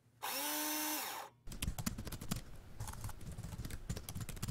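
A short whirring tone that rises slightly in pitch and then holds for about a second, followed from about a second and a half in by rapid computer-keyboard typing clicks that run for about three seconds, the typing sound effect for a tagline being typed out on screen.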